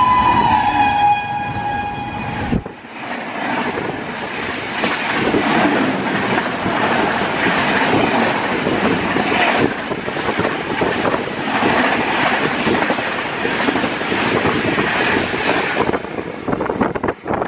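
WAP-7 electric locomotive's horn sounding two tones at once as it passes, dipping slightly in pitch and cutting off about two and a half seconds in. Then the Howrah–New Delhi Rajdhani Express coaches rush past at speed with a steady clatter of wheels on rail, fading near the end.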